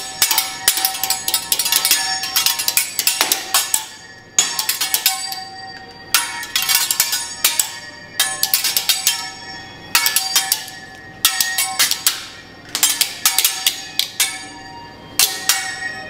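Steel teppanyaki utensils clanged rapidly against each other and the griddle in rhythmic flurries, a new flurry every second or two, each leaving a metallic ring.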